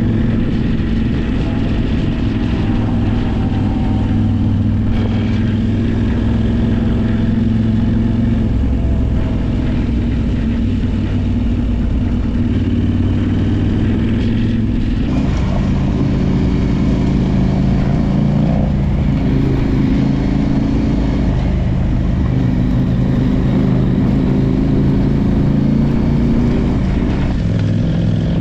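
Adventure motorcycle engine running under way, its pitch rising and falling with the throttle, with a clear change in the note about halfway through.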